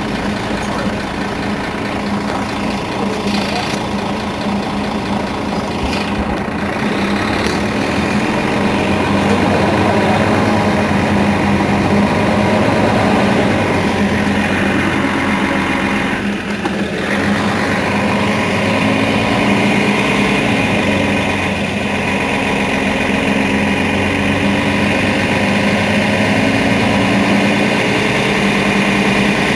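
Mercedes-Benz Citaro facelift city bus idling while stationary at the stand, its rear-mounted diesel engine giving a steady low hum. The level rises a little about eight seconds in.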